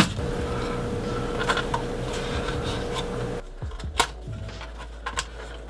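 Handling noise from unpacking a 3D printer: black foam packing rubbing as it is lifted out of the enclosure top, with a sharp knock at the start and a few light clicks and knocks in the second half as a hand reaches inside the frame.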